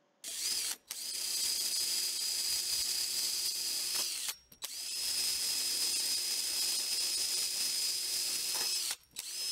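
Electric drill spinning a ball-shaped sanding attachment against red cedar as it sands out the inside of a carved wooden shoe. There is a steady high whine over a hiss. The drill starts, stops briefly twice (once about four and a half seconds in, once near the end), and its pitch rises as it spins up and drops as it winds down.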